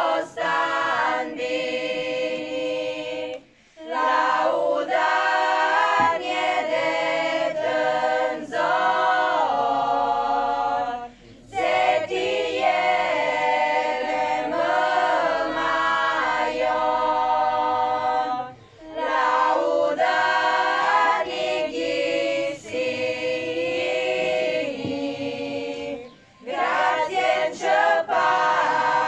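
A women's choir singing a traditional Arbëreshë song a cappella, in several voices. The song moves in long phrases of about seven or eight seconds, with a brief pause for breath between each.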